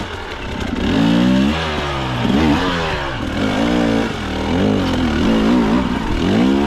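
Two-stroke KTM hard enduro dirt bike engine revving up and down again and again as it grinds up a climb, the revs rising and falling every second or so.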